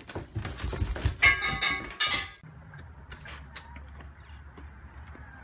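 Feet thumping quickly down stairs with a brief high-pitched cry over them. This cuts off at about two and a half seconds in to a quieter steady low hum with a few light clicks.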